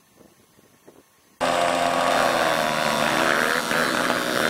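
Several small motocross bikes' engines revving together at the start gate, the revs rising and falling. The sound comes in abruptly about a second and a half in, after a quiet stretch.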